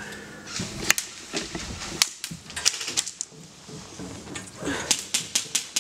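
Scattered sharp clicks and pops of airsoft gunfire and BBs striking the plywood walls, coming at irregular intervals and bunching into a quick run near the end.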